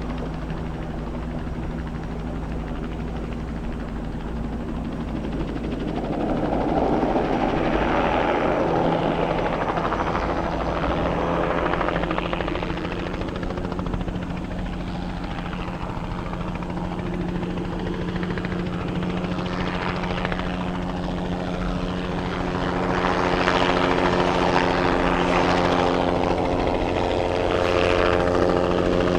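Bell 206B-3 JetRanger III helicopter flying crop-spraying passes, with the steady sound of its turboshaft engine and rotor. It grows louder as it passes close, about six seconds in and again near the end.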